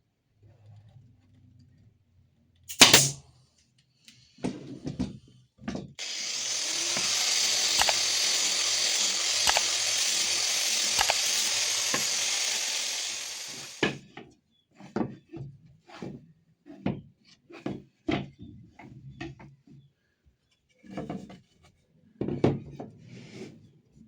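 A handheld power tool runs steadily for about eight seconds in the middle, working wood. Before and after it come separate knocks and clicks of wood and tools being handled, with one sharp knock about three seconds in.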